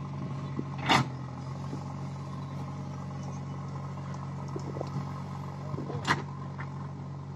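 JCB backhoe loader's diesel engine running steadily, with two sharp knocks about a second in and about six seconds in.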